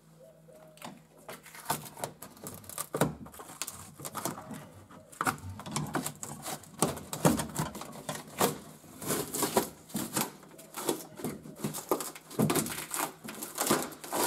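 Masking tape and a fibreglass-and-tape dashboard shell being prised and peeled free of a car's dash opening: a run of irregular crackles and clicks, busier and louder in the second half.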